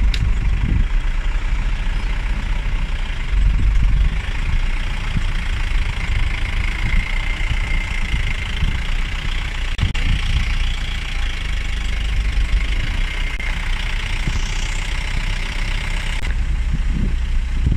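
Safari vehicle's engine idling with a steady low rumble, under a steady high hiss.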